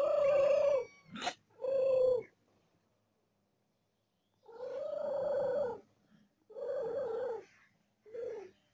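Cat meowing: a run of about five drawn-out calls, with a short, sharp rising squeak just after the first and a pause of about two seconds in the middle.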